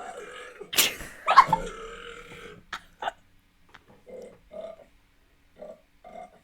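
Loud human burps from a funny-burp compilation. The two loudest come about a second in, the second falling in pitch, and a few short voiced sounds follow.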